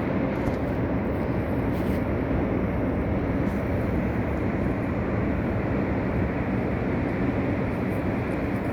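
Heavy surf of a rough winter sea, a continuous low rumble of breaking waves with no single crash standing out.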